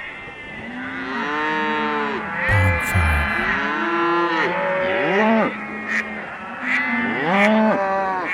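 Several cows mooing in overlapping calls, each rising and falling in pitch.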